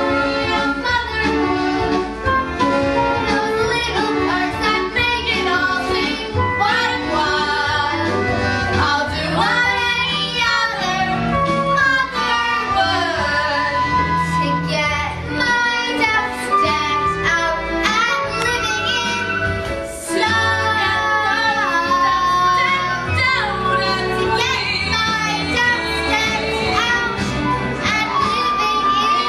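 Young voices singing a musical-theatre song, with instrumental accompaniment carrying a bass line.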